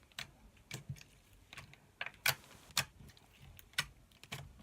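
Slime being handled, giving irregular sharp clicks and pops, about a dozen spread unevenly, the loudest a little over two seconds in.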